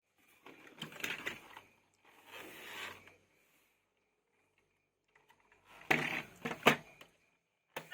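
Handling noise of toys or their packaging: three bouts of rustling with sharp clicks, the last with the loudest clicks.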